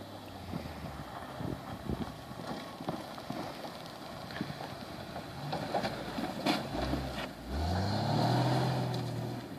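Chevrolet TrailBlazer SUV driving off road, its engine running with scattered knocks and clunks. About two-thirds of the way in the engine revs up and is loudest near the end.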